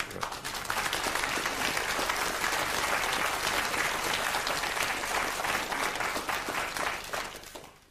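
Studio audience applauding: dense, steady clapping that dies away near the end.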